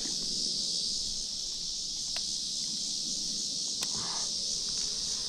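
Steady high-pitched drone of an insect chorus, with a couple of faint clicks about two and four seconds in.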